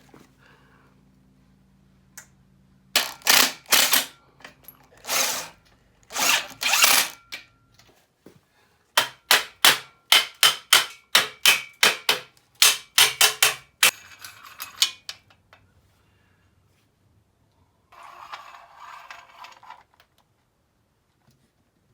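Screws being driven into a handrail and end post with a power driver in several short bursts. These are followed by a run of about a dozen sharp clicks, roughly two or three a second, and a fainter scraping stretch near the end.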